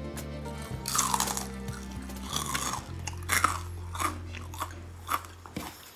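Crisp crunching of fried shredded-potato balls being bitten and chewed, a run of crunches starting about a second in, over soft background music.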